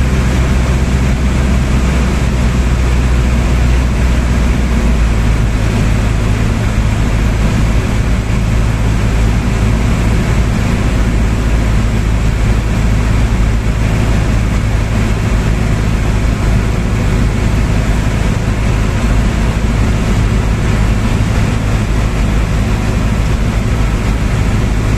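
Helicopter cabin noise in flight: a loud, steady drone of engine and rotor with a hiss of rushing air over it, its low hum shifting about five seconds in.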